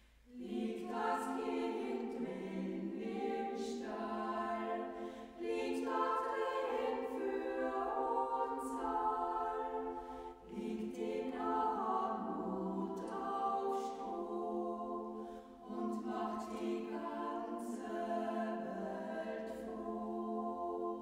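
A choir singing a slow song a cappella, several voices holding long notes that move in steps.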